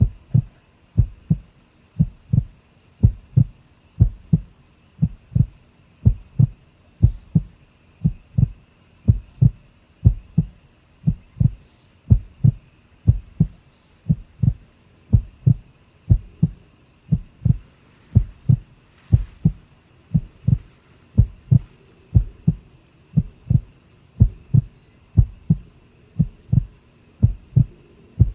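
A heartbeat sound effect: low, dull thumps in a steady rhythm of about two a second, starting suddenly.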